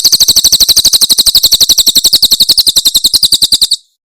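Cililin bird singing its 'tembakan' call: a loud, rapid rattle of short, sharp notes at about thirteen a second, stopping abruptly near the end.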